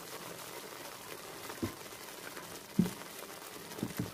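Thick tomato sauce simmering in a frying pan: a steady low hiss with a few soft bubbles popping, four in all, the last two close together near the end.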